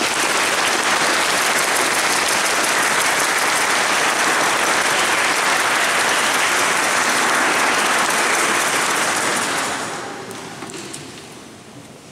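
Audience applauding: the clapping starts at once, holds steady, then dies away over the last two seconds.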